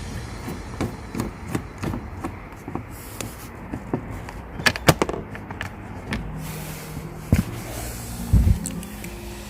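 Scattered clicks, taps and knocks of hands working at the plastic glove-box trim under a car dashboard while its screws are taken out, the sharpest pair about five seconds in.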